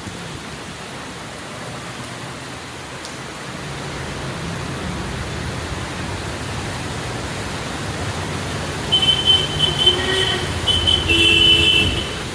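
Steady hiss of heavy rain, with a low vehicle rumble growing in the second half. For the last three seconds or so, loud, broken high-pitched tones sound over the rain.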